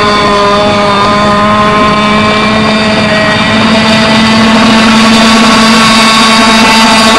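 Nitro glow-fuel model engine of a radio-controlled PT boat running at speed on the water, a steady engine note whose pitch wavers only slightly.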